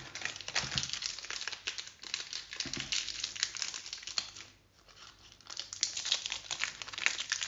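Foil wrapper of a veganpower protein bar crinkling and rustling as it is torn open and peeled back by hand, with a brief lull about four and a half seconds in.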